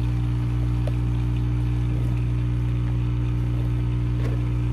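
Nescafé Dolce Gusto Piccolo capsule coffee machine's pump buzzing steadily at the end of a brew.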